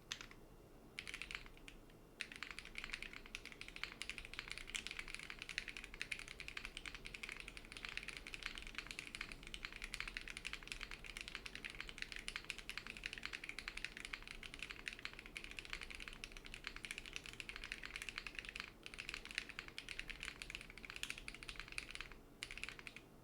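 Fast continuous typing on a custom mechanical keyboard built without foam and fitted with GMK keycaps: a dense stream of key clacks. It starts after a couple of short pauses about a second in and breaks briefly twice near the end.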